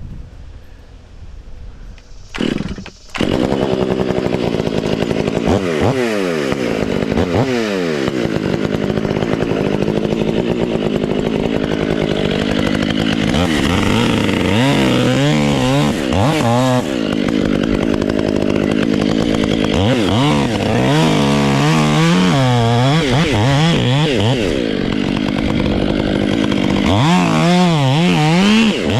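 Two-stroke chainsaw revved briefly, then run at full throttle making the back cut through a tree trunk. Its engine pitch dips and recovers repeatedly as the chain bogs down in the wood.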